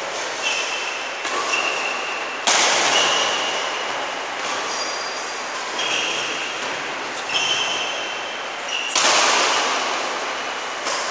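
Badminton rally: rackets striking the shuttlecock every second or two, the hardest hits about two and a half and nine seconds in, with sneakers squeaking on the court between shots. Each hit echoes around the hall.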